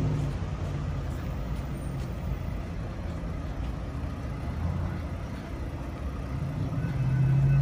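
Vehicle engines running, a low steady rumble that grows louder near the end.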